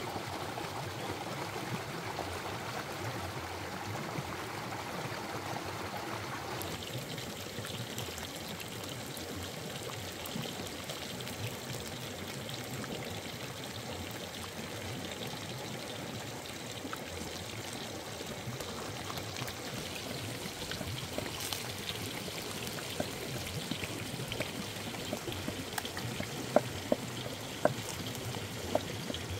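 Stream water rushing steadily over rocks. Near the end, a few sharp knocks of a wooden pestle pounding in a wooden mortar.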